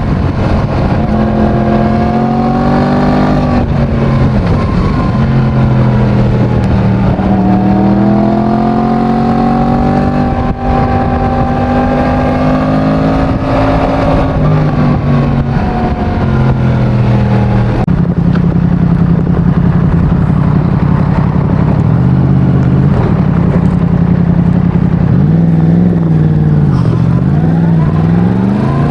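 Yamaha MT-10's crossplane inline-four on its stock exhaust, ridden and revving through the gears. Its pitch climbs and drops at several gear changes, and it falls away then picks up again near the end.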